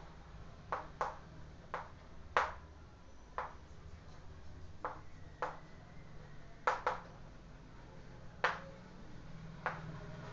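Chalk writing on a chalkboard: about a dozen sharp, short taps at irregular intervals as the chalk strikes the board, over a low steady hum.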